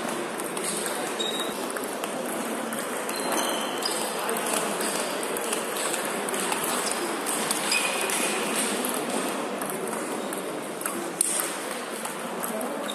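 Table tennis rallies: the ball clicking off bats and table in quick succession, over a steady background din from other tables in play in the hall.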